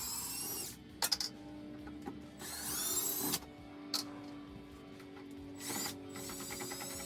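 Power drill spinning up in three short runs, each a whine rising in pitch, backing out the screws that hold a refrigerator in place, with a few sharp clicks in between.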